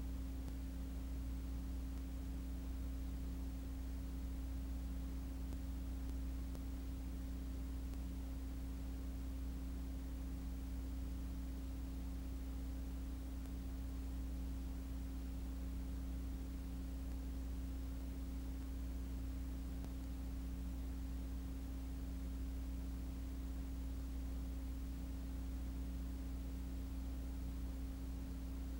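Steady low electrical hum, a few constant tones over faint hiss, with no kart engine sound.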